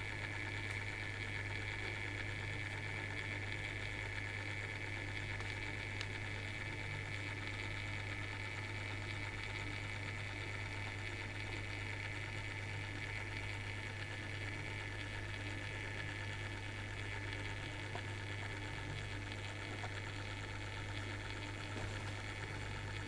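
Small motor in a rotating LED display base humming steadily as it turns the crystal cube, a low hum with a fainter high whine above it.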